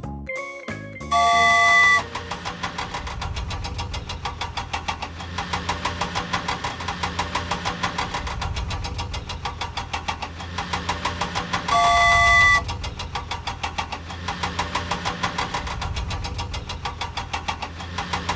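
Cartoon vehicle engine sound effect running with a fast, even knocking pulse, about five beats a second. A loud horn-like honk sounds twice, once about a second in and again midway.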